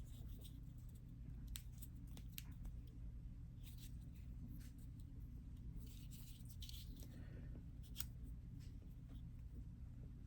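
Faint snips of scissors trimming adhesive slide tape, with scattered small clicks and brief rustles of handling.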